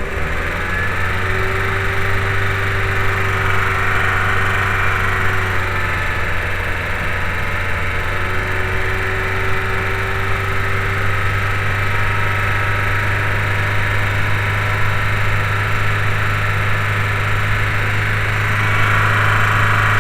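VW New Beetle 2.0L AEG four-cylinder engine idling steadily after a fouled spark plug on cylinder 4 was replaced; it is still clearing the leftover fuel from that cylinder.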